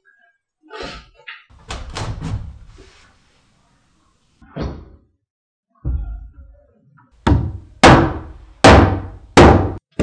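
Heavy wooden knocks and thumps as timber boards are handled and set down, then four strong knocks a little under a second apart near the end as an upright wooden post is knocked down into a grooved sill board.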